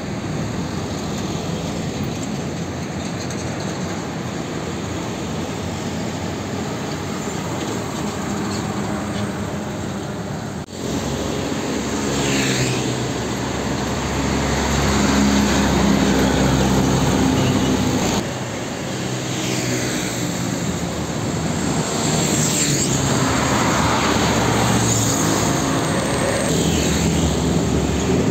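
Road traffic passing close by: heavy diesel trucks running past with a deep engine hum, and motorbikes and cars sweeping by, each rising and fading as it passes. The sound changes abruptly twice as one stretch of traffic gives way to another.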